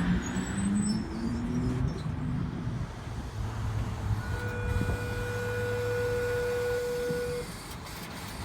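Tangara electric train slowing to a stop at the platform: a low rumble with a wavering motor whine, then a steady humming tone for about three seconds from the stopped train.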